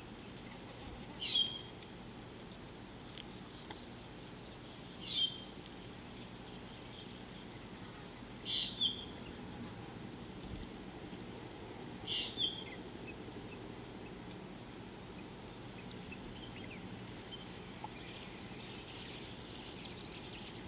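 A bird calling: a short, high call, a quick downward flick onto a held note, repeated four times about every three to four seconds, then fainter chirps near the end. A steady low background hiss runs underneath.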